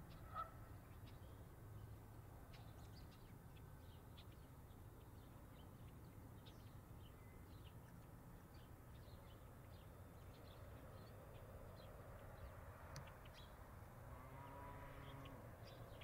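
Quiet outdoor ambience with faint, scattered short high chirps of small birds over a low steady rumble. There is one brief louder call just after the start, and a faint low drone comes up near the end.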